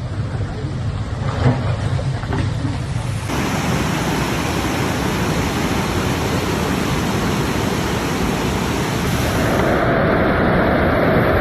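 Rushing floodwater: a loud, steady wash of noise. It changes abruptly about three seconds in and again near the end, as the footage cuts between flood scenes.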